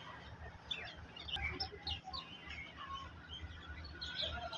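Birds chirping: a scatter of short, quick chirps that fall in pitch, busiest about a second in and again near the end, over a low steady hum.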